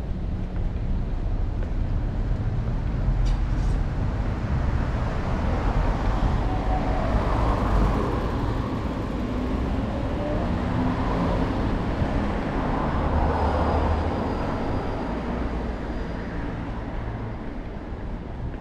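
Road traffic: motor vehicles driving past on a city street, engine hum and tyre rush that swell through the middle and ease off toward the end.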